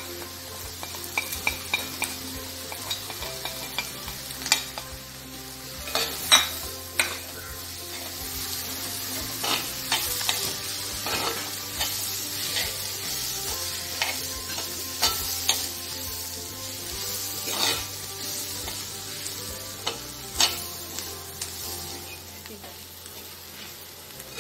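A spoon stirring and scraping onions with freshly added spice powders frying in oil in a metal pot. There is a steady sizzle, and the spoon knocks against the pot in frequent sharp clicks.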